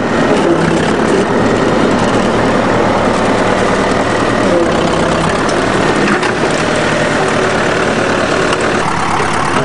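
Backhoe's diesel engine running steadily while it works.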